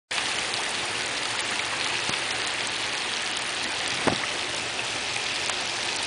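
Heavy rain falling onto canal water, a steady, dense hiss of drops. One louder drop hits about four seconds in.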